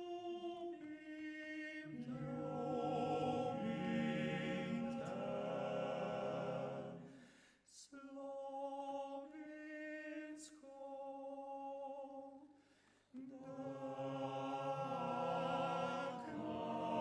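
Male vocal octet singing a cappella in close harmony. The singing breaks off briefly about seven seconds in, goes on more thinly, then breaks again just before thirteen seconds and resumes in full harmony.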